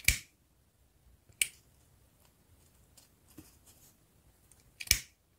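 Disposable lighter being struck: a sharp click at the start, another about a second and a half in, and a third near the end, with a couple of faint ticks between.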